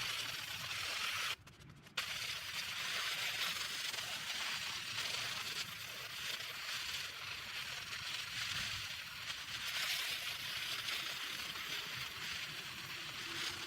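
Garden hose spraying water onto a plastic tarp to rinse it off: a steady hiss of spray, with a brief break about a second and a half in.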